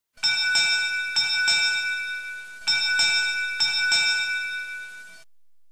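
A bell struck eight times in four pairs, each strike ringing on with a clear high tone, cut off abruptly about five seconds in. The pattern is a ship's bell sounding eight bells.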